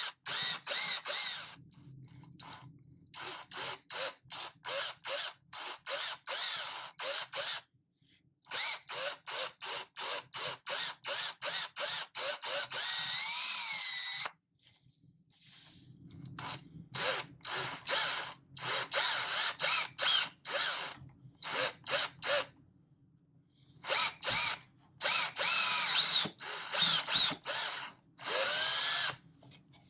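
Power drill running in short trigger bursts, about two a second, while drilling into a wooden slat, with a couple of longer runs in which the motor's whine rises in pitch.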